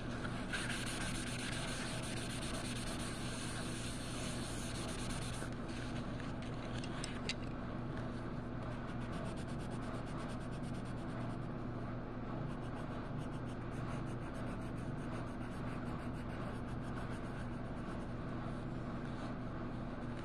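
Colouring strokes rubbing and scratching on paper, over the steady low hum of the truck's idling engine.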